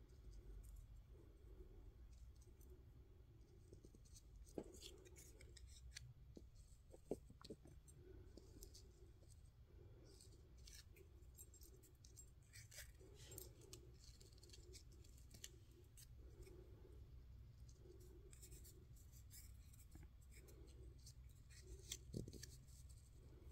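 Near silence with faint rustles and scattered soft clicks and taps of paper and fabric scraps being handled on a cutting mat, a few slightly sharper ticks among them.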